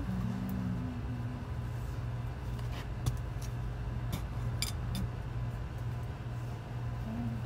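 Background music: a sustained low drone, with a short melody at the start and again near the end. A few sharp clicks fall between about three and five seconds in.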